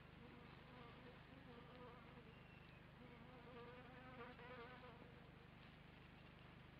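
A faint buzzing hum of steady pitch that wavers slightly, heard twice for about a second and a half each, the first starting about a second in and the second about three seconds in, over near-silent background hiss.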